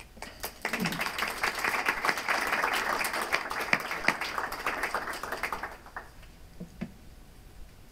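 Audience applauding, starting about half a second in and dying away after about six seconds.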